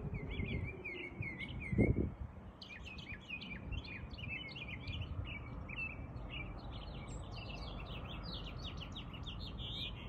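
Small birds chirping: a run of repeated curving notes in the first two seconds, then a busier chatter of quick overlapping chirps. A low wind rumble on the microphone runs underneath, with one louder gust about two seconds in.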